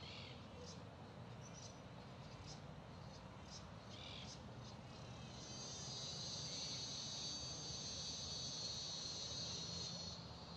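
Insects buzzing steadily in a high, trilling chorus, rising to a stronger, more intense buzz about halfway through before easing back near the end. A few short chirps come over it.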